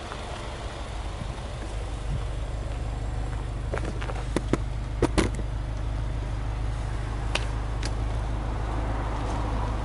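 Subaru Legacy 2.0GT's turbocharged EJ20 flat-four engine idling steadily, heard at its twin exhaust tips. A few sharp clicks come about four to five seconds in and again near the end.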